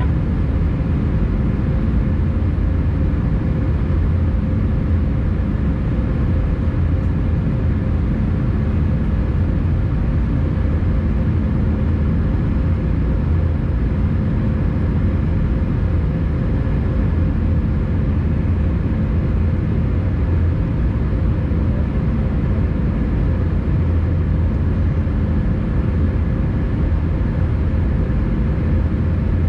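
Steady cabin drone of an Airbus A320 climbing after takeoff: its CFM56 turbofan engines and the airflow over the fuselage, heard from inside the cabin as a deep, even rumble with a steady hum above it.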